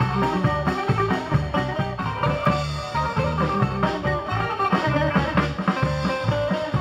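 Live Greek band playing an instrumental passage: a fast plucked melody on a bouzouki-family lute over bass and drums.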